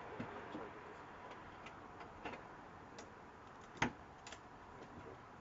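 A few scattered sharp clicks and taps from hands working parts of a convertible soft top, the loudest just before four seconds in, with faint low voices early on.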